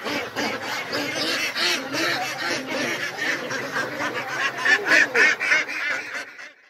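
A flock of mallard ducks quacking, many overlapping calls at once, fading out near the end.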